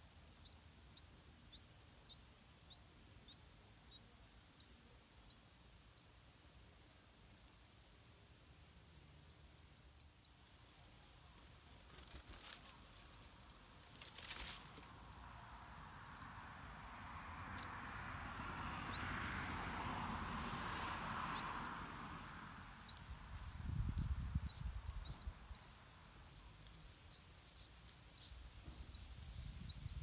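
Yellow-vented bulbul nestlings begging: short, thin, high chirps, each sliding down in pitch, repeated steadily and coming faster in the second half. A soft rushing noise swells up in the middle.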